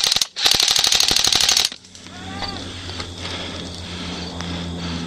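Airsoft gun firing: a brief burst, then a rapid automatic string lasting about a second and a half. The firing ends with a hit on the opponent.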